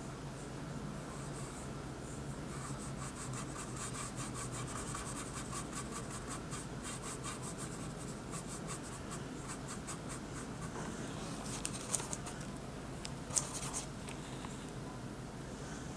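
An artist's paintbrush working oil paint onto the painting surface, the bristles scratching and rubbing in a rapid run of short, repeated strokes, with a couple of sharper clicks near the end.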